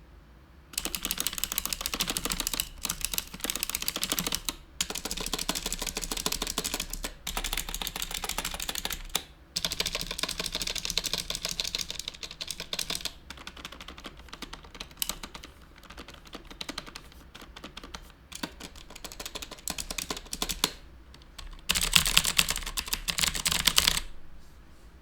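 Typing on an Aula F2058 mechanical keyboard: rapid runs of key clicks in bursts with short pauses, softer through the middle, with the loudest flurry near the end.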